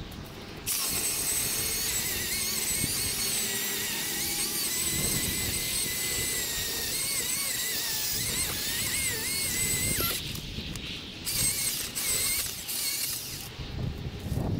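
Milwaukee M18 Fuel battery chainsaw cutting low on a tree trunk. Its motor whine starts about a second in and dips and recovers in pitch as the chain bites. About ten seconds in it stops, then runs in a few short bursts.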